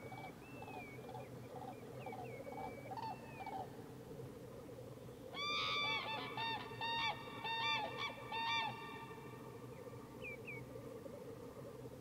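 A pair of common cranes giving their trumpeting unison call, a run of repeated loud notes lasting about three seconds, a little past the middle. This is the courtship duet of a mated pair, called with heads raised.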